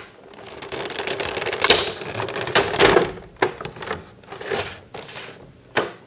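Clear plastic blister packaging of a boxed figure being pulled up and handled: crackling and crinkling, with a few sharp clicks and snaps.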